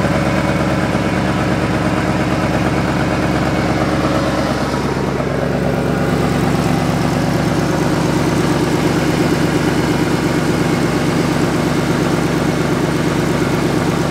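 Pickup truck engine idling steadily.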